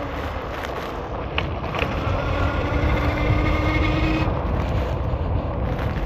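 Wind buffeting the microphone over a steady rumble of fat tyres on the road, with the electric hub motors of an all-wheel-drive fat-tire e-bike whining. The whine climbs slowly in pitch, then cuts off suddenly about four seconds in.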